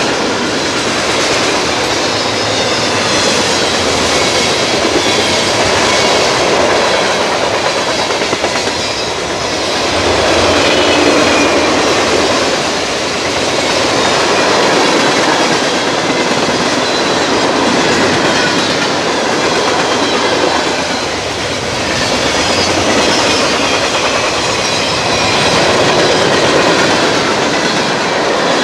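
Freight cars, mostly tank cars, rolling past close by: a continuous rumble and rattle of steel wheels over the rail joints. It swells and eases every few seconds as the cars go by.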